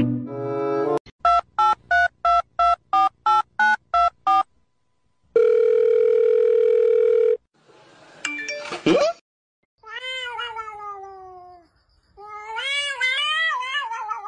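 A quick run of about eleven short electronic beeps, then a steady telephone-like tone held for about two seconds. After that a domestic cat meows twice: a long falling meow, then a wavering one.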